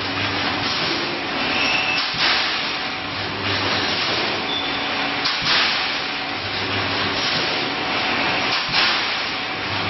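Reinforcing mesh welding machine working through its cycle: a low hum alternates with a short burst of hiss, repeating roughly every three seconds.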